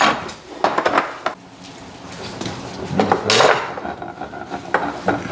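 Tableware and cutlery clinking and knocking as food is dished out at the table: a few separate clinks, the loudest about three seconds in.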